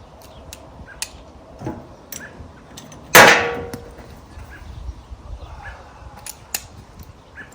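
A loud metallic clang about three seconds in, ringing briefly as it dies away, amid small clicks and taps of metal parts being handled.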